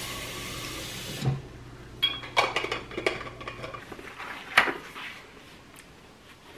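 Kitchen faucet running into a water bottle, shut off about a second in with a knock. A few light clatters and clicks follow, with one sharp click past the middle.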